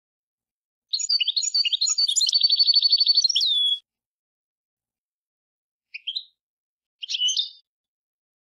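European goldfinch singing: a twittering phrase of about three seconds that runs into a fast trill and ends on a falling slide. It is followed by a short rising call and one more brief call near the end.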